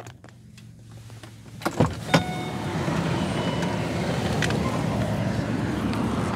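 Range Rover Sport's driver-side power window being lowered: two clicks about two seconds in, then a steady hum as outside traffic noise comes in through the opening.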